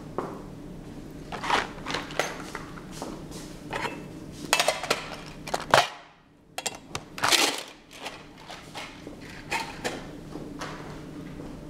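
Someone moving about a small room, with irregular knocks, clicks and rustles of footsteps and things being handled, over a steady low hum; the hum and noises drop out briefly about six seconds in.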